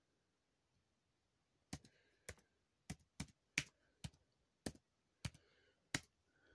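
About ten sharp, separate clicks, irregularly spaced at roughly two a second, starting about two seconds in, like keys being pressed.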